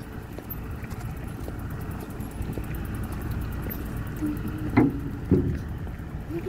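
A small river ferry idling with a steady low rumble. About five seconds in, two sharp clanks as bicycles are wheeled over the ferry's steel loading ramp.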